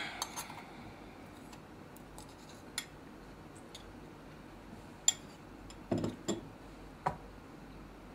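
A few scattered small clicks and light knocks over a quiet room hum. The sharpest click comes about five seconds in, followed by a short cluster of duller knocks about a second later.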